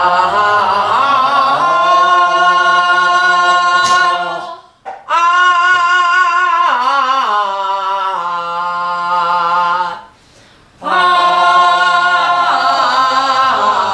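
A woman's pansori voice holding long, open 'ah' vowels as a breath-and-voice warm-up, each note sustained on one exhaled breath. There are three held notes with short pauses for breath between them, and the middle note slides down in pitch partway through.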